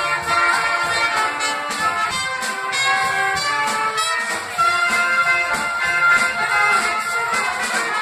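A small live band of trumpets, double bass and drum kit playing a tune with a steady beat.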